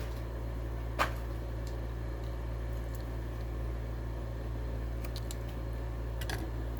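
Hot Wheels blister package being pried and torn open: one sharp crack about a second in, then a few faint clicks and crinkles near the end, over a steady low hum.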